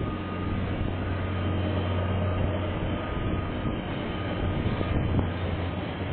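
KiwiRail diesel-hauled container freight train rolling past: a steady rumble of wagons on the rails with a low drone underneath.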